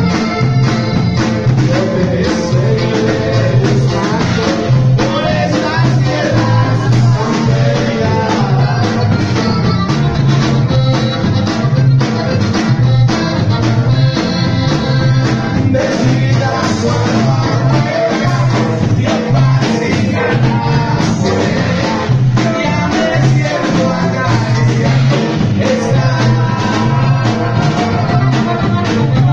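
Live norteño band playing, the accordion carrying the melody over a steady, evenly pulsing bass line.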